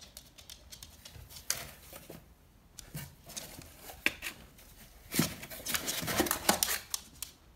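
Miniature schnauzer rummaging with its head in a cardboard box: the cardboard rustles and scrapes in irregular short crackles and knocks. The sounds are busiest and loudest over the last couple of seconds, as the dog pulls a plush toy out of the box.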